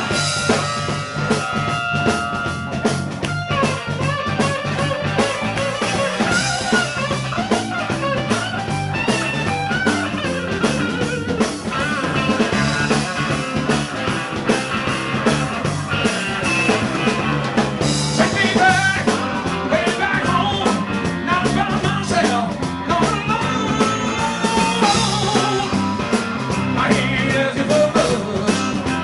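Live blues-rock band playing, with an electric guitar taking the lead over a steady bass line and drum kit.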